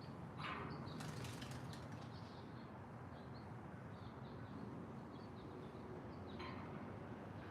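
Wild birds chirping: scattered short high chirps, with a falling call about half a second in and again near the end, and a brief run of rapid clicks or rustling around a second in, over a steady low background hum.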